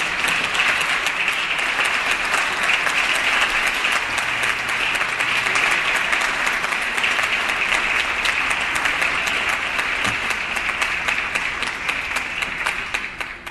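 Legislators applauding together: a dense, steady crowd applause that tails off at the very end.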